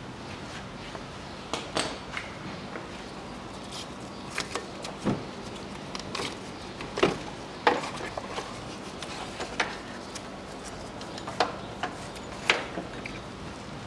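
Scattered clicks and knocks of a wrench and a loosened ribbed accessory drive belt being worked off the engine's pulleys by hand, over a faint steady hum.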